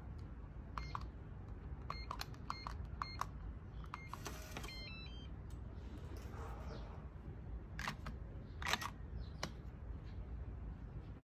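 Digital keypad door lock beeping at each key press as a passcode is entered, about eight short beeps. A short mechanical whirr follows with a quick run of electronic tones as it unlocks. Later come a few sharp clicks, the loudest just under nine seconds in.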